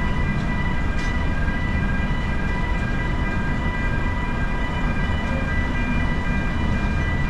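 Freight train of container wagons rolling past, a steady high-pitched squeal held over a continuous low rumble.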